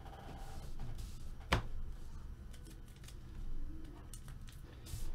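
Faint handling noises at a desk, with one sharp click or tap about a second and a half in and a few softer ticks.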